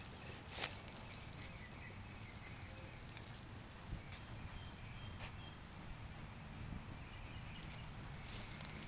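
Quiet outdoor background with a few short sharp rustles or clicks in the first second and a faint steady high-pitched whine throughout.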